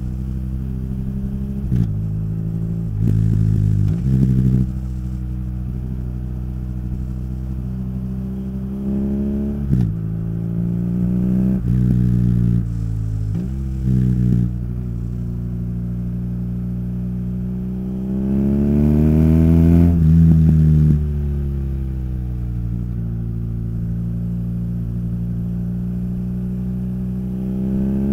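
Motorcycle engine and exhaust under way, the revs climbing and then dropping sharply several times as it shifts through the gears. About 18 seconds in the revs rise for a longer stretch, then fall away near 21 seconds.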